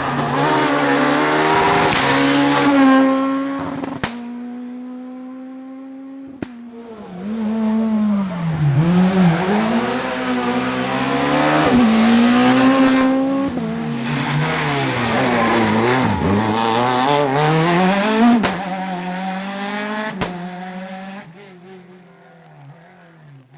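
Renault Clio S1600 rally car's 1.6-litre four-cylinder engine revving hard on a stage, its pitch climbing and dropping again and again through gear changes, with a few sharp cracks. It fades away near the end.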